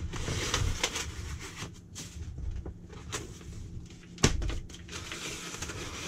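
Polypropylene packing strap on a cardboard box being cut and pulled away, with scraping, rustling and small clicks of the plastic band against the cardboard, and a sharp knock about four seconds in.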